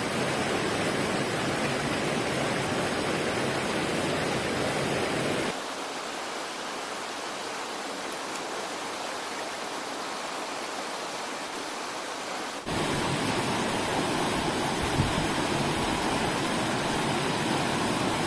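Shallow stream rushing over rocks: a steady rush of flowing water. It drops abruptly in level about five seconds in and comes back up about thirteen seconds in.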